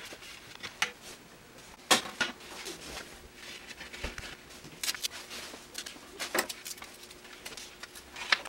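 Hands working wires and a small circuit board on a LiPo battery pack over cardboard: scattered light clicks, taps and rustles. The sharpest is about two seconds in, and more come in a cluster a little past the middle.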